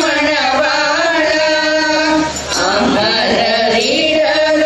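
A group of women singing a Tamil devotional bhajan to Lord Murugan together, in held, chant-like phrases, with a short break between lines about halfway through.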